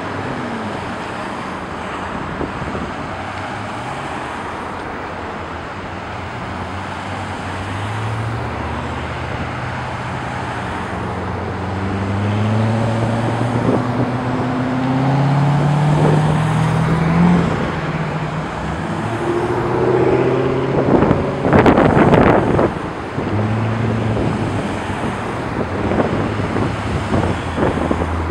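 Procession of Corvette V8s driving past one after another, a steady wash of engine and tyre noise. In the second half several engine notes rise in pitch as cars accelerate by, with one loud burst about three-quarters of the way through.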